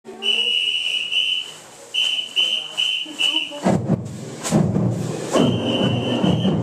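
A marching band's whistle count-off: two longer whistle blasts, then four short evenly spaced ones, after which the band starts playing. A long whistle blast sounds again over the band near the end.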